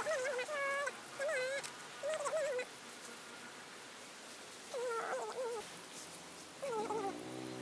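A small animal's repeated short, wavering cries, like cat mewing: four in quick succession, then a pause and two more.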